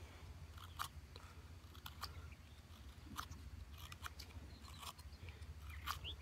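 Small carving blade whittling wood, scooping out the dip in the head of a carved wooden fork: faint, scattered short cuts, about half a dozen.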